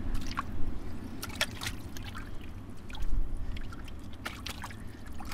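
A gloved hand sloshing and squelching through muddy water, groping in the flooded bottom of a privy pit, with irregular small splashes.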